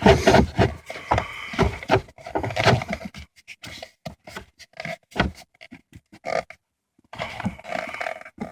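Clicks, knocks and scraping of the plastic heater blower housing being twisted and pulled free by hand, with a brief dead gap about two-thirds through.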